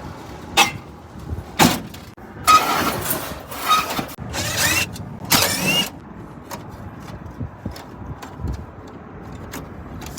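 A small power tool's motor whirring in three short bursts, its whine rising in pitch, with sharp metal clicks before and light ticks after, as parts of an HVAC rooftop unit are worked on.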